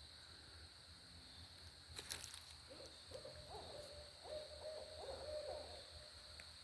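An owl hooting: a run of hoots lasting about three seconds, with a sharp click just before it.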